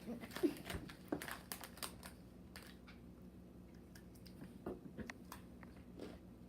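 Plastic snack packaging crinkling and clicking as it is handled, a quick run of crackles in the first two seconds and scattered ones after.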